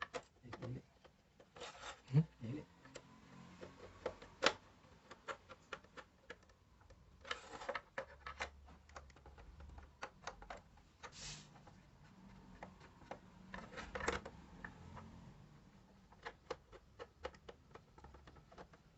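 Hands and tools working on an old radio: many scattered clicks and taps, with a few short scraping or rubbing sounds about 2, 7, 11 and 14 seconds in.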